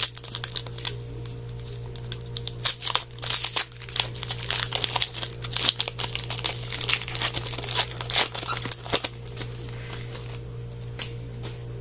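Foil wrapper of a trading card pack crinkling and tearing as it is ripped open and handled by hand, with dense irregular crackles through the middle of the stretch. A steady low hum sits underneath.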